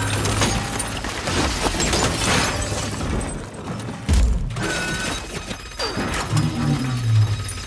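Action-film battle sound effects: repeated crashing, shattering debris and metallic mechanical clanks, with a deep boom about four seconds in.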